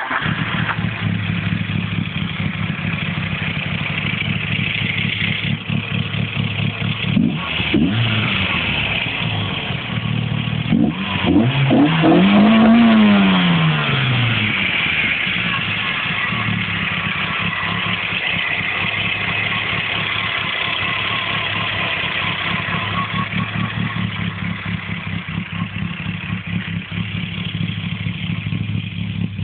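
Volkswagen Golf Mk1 GTI's four-cylinder petrol engine starting and settling into an idle, then revved twice, a short blip and then a longer rise and fall in pitch, before dropping back to a steady idle.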